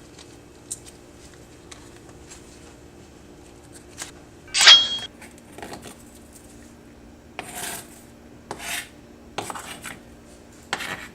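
Kitchen utensils being handled: scattered light clicks, one loud ringing metallic clink about halfway through, and a few short scraping sounds near the end, over a steady low hum.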